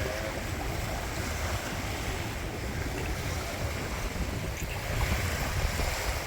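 Waves washing onto a beach, mixed with wind buffeting the microphone in uneven low rumbles.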